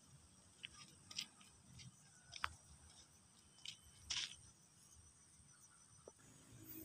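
Near silence with a few faint clicks and scratches: fingers handling a small spool of kite string, picking at it to find the buried end of the line.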